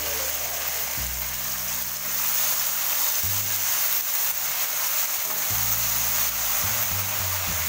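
Water spinach sizzling as it stir-fries in hot oil in a pan, a steady hiss, under background music whose low notes change every second or two.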